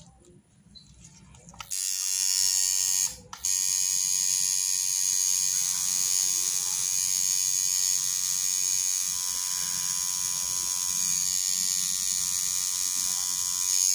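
Coil tattoo machine buzzing steadily as it needles ink into the skin. It starts about two seconds in, cuts out briefly a second later, then runs on and stops near the end.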